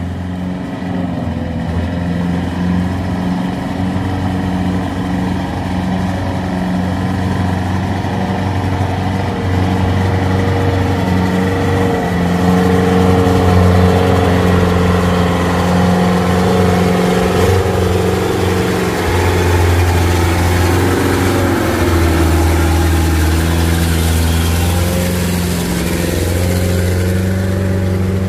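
Truck engines running steadily under load as light trucks pull up a steep, rough dirt climb, growing louder about halfway through.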